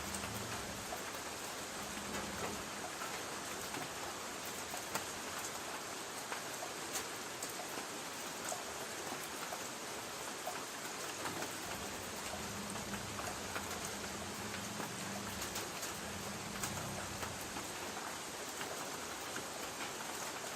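Light rain pattering steadily on a tin roof, a constant hiss with many small drop ticks.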